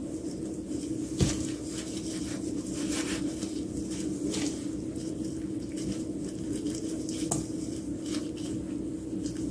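Cucumber kimchi being mixed by gloved hands in a stainless steel bowl: wet squishing and patter as the seasoned cucumber pieces are tossed and squeezed, with a few sharp knocks against the bowl, the loudest about a second in. A steady low hum runs underneath.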